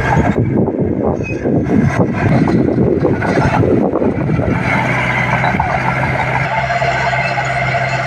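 Komatsu D20P mini bulldozer's diesel engine running under load while pulling dirt. It is rough and noisy through the first half, then settles to a steadier drone from about halfway.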